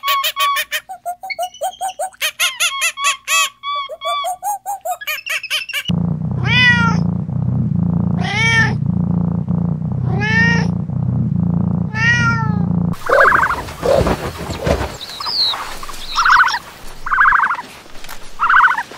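Rapid high, squeaky chattering calls, then a domestic cat meowing four times, about two seconds apart, each call rising and falling in pitch over a low steady hum, then softer irregular chirping calls.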